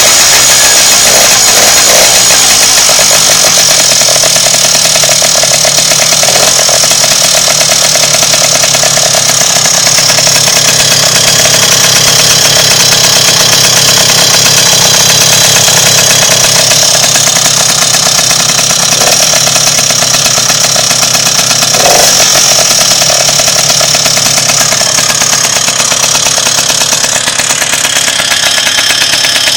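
Tomos A3 moped's two-stroke engine, fitted with a 65 cc Airsal cylinder kit and a Master sport exhaust, running steadily at idle on its stand, loud, with one short blip about two-thirds of the way through.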